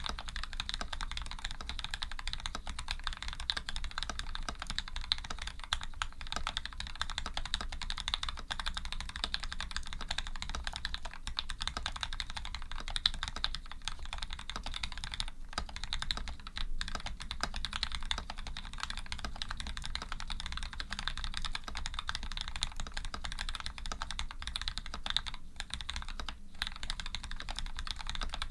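Fast, continuous typing on a Canoe v2 custom mechanical keyboard: lubed Gateron Ink linear switches with films, PBT keycaps and an aluminium plate, giving a dense run of keystrokes with a few very short pauses.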